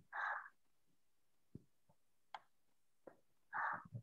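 Near quiet, broken by two short, faint breathy sounds, one just after the start and one near the end, with a few soft clicks between them.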